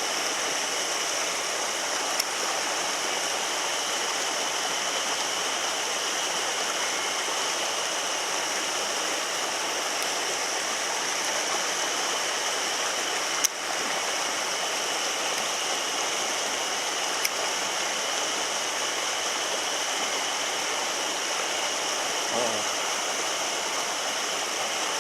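Mountain stream water rushing steadily, a constant hiss, with three short sharp clicks.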